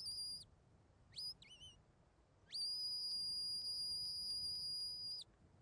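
Shepherd's whistle commands to a working sheepdog. A whistle ends just after the start, a short rising whistle and a short falling one follow about a second in, and then comes one long, steady, high whistle held for nearly three seconds.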